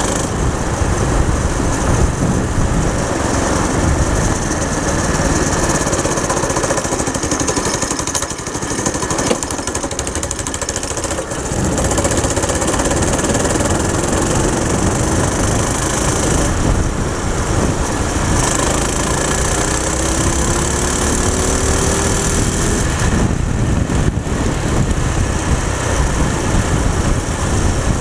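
Go-kart's small engine running while the kart drives along, easing off briefly about a third of the way in, then picking up again.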